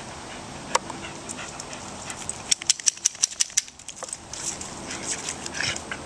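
Sounds of a corgi, with a quick run of sharp clicks and snaps a little past halfway.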